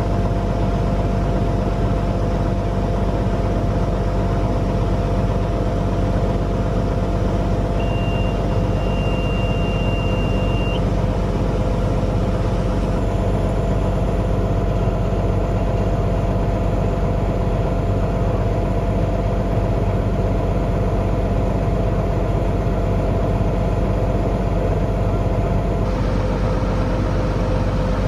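Steady engine and cab drone of a farm machine running through the field. About eight seconds in, a single high beep is held for about three seconds.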